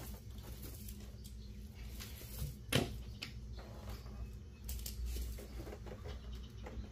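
A few light taps and clicks over a steady low hum, with one sharp knock a little before the middle.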